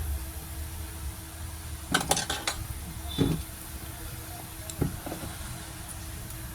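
Small metal repair tools clicking and tapping on a workbench during soldering work on a phone's charging port: a quick cluster of clicks about two seconds in, then single taps about three and five seconds in, over a steady low hum.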